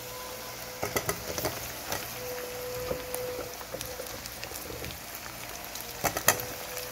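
Chopped onions sizzling in oil in an aluminium pot. Potato wedges are dropped into it with sharp knocks, a few about a second in and louder ones near the end.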